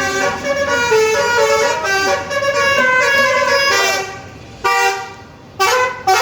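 A bus's 'telolet basuri' musical horn, several roof-mounted air-horn trumpets sounding together and playing a tune in changing notes. The tune stops about four seconds in, followed by two short blasts near the end.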